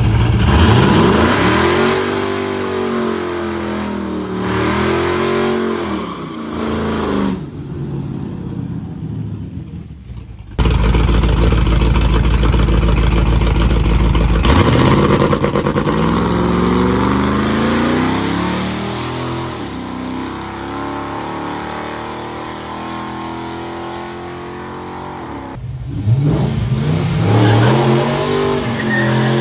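Drag-race car engines revving hard at the start area, in three short clips: a 1967–72 Chevrolet C10 pickup's engine rising and falling in pitch, then a second C10 pickup with a deep rumble before its revs climb, then a fourth-generation Chevrolet Camaro revving near the end.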